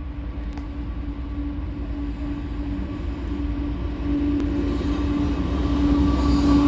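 Pacific National diesel freight train approaching, a low rumble with a steady hum that grows louder as the locomotive nears.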